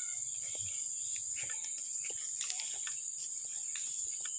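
Steady high-pitched insect chorus, like crickets, with scattered soft clicks and knocks throughout.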